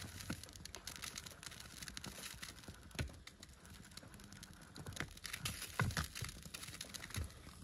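Egg frying in a pan beneath a red-hot metal moai, under an upturned glass cup: a steady fine crackle and popping of sizzling. Sharper clicks come about three seconds in, and a cluster comes in the second half as metal tongs grip and knock against the glass.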